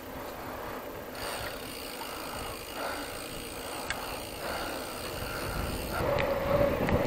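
Mountain bike riding along, its freewheel hub ticking as it coasts, over tyre and wind noise.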